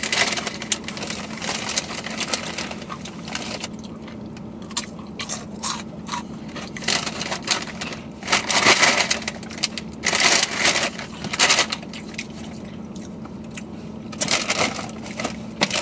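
Takis Fuego rolled tortilla chips being crunched and chewed close up, with crackling rustles of the foil chip bag, coming in irregular bursts. A steady low hum runs underneath.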